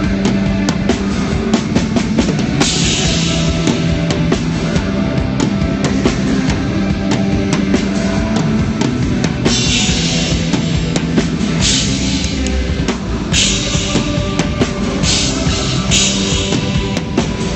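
Rock band playing loud and live: a drum kit with bass drum and repeated cymbal crashes over sustained bass and guitar. The sound is heard through a phone livestream, with the highs cut off.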